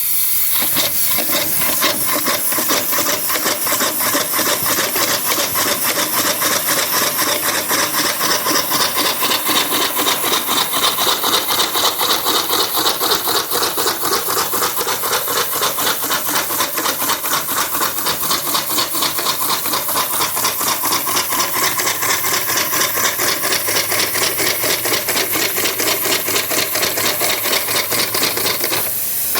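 Circa-1904 Stanley steam car engine, a two-cylinder steam engine, running steadily under steam with a fast, even chuffing and clatter. The owner calls it clunky and notes that its manifold is missing.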